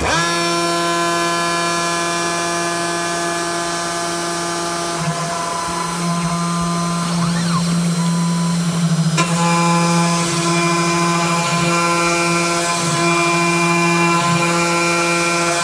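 CNC router spindle spinning up suddenly and then running with a steady, high multi-tone whine as a small router bit mills white plastic; the pitch dips briefly now and then under cutting load, and the sound shifts abruptly about nine seconds in.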